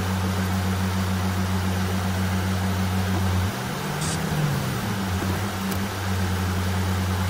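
Steady hiss of heavy rain on a car, with a low hum from the idling vehicle. The hum shifts and wavers about halfway through.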